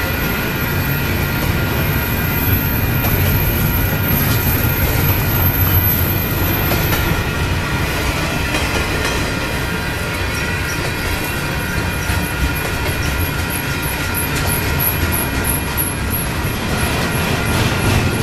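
Double-stack intermodal freight train's well cars rolling past close by: a steady heavy rumble of steel wheels on rail, with steady high wheel-squeal tones over it.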